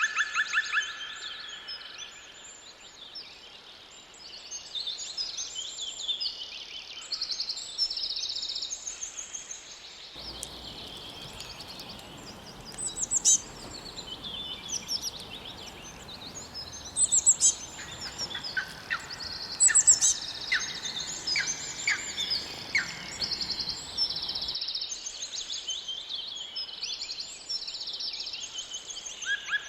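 Several songbirds singing: overlapping trills and quick repeated high chirps, with a few louder sharp chirps and falling notes in the middle. The background hiss changes abruptly about a third of the way in and again near the end, as at a join between two recordings.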